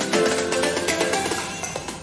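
Background music: melodic pitched notes over a light beat, growing quieter toward the end.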